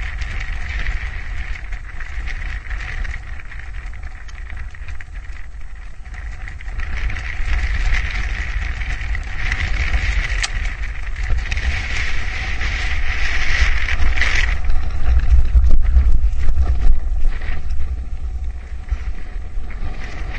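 Wind buffeting the microphone with a steady rumble, under a high, even drone that swells and then cuts off suddenly about fourteen seconds in.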